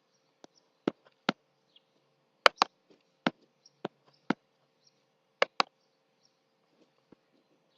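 Short, sharp clicks at irregular intervals, some in quick pairs, over a faint steady hum.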